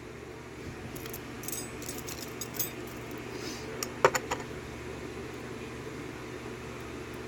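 Small metal lock parts clinking and tinkling as pin tumblers are taken out of a euro cylinder lock, with one sharp metallic click about four seconds in.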